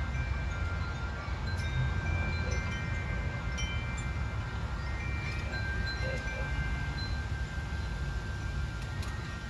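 Chimes ringing: several clear high tones sounding and fading in overlapping turns, over a steady low rumble, with a few faint clicks.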